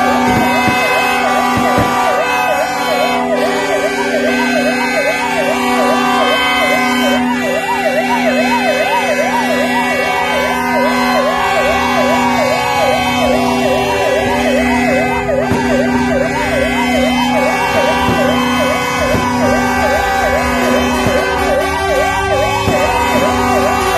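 Several vehicle sirens sounding at once. One yelps in fast up-and-down sweeps, two or three a second, while others wail in slow rises and falls about every five seconds. Under them, vehicle horns honk in long repeated blasts of about a second each.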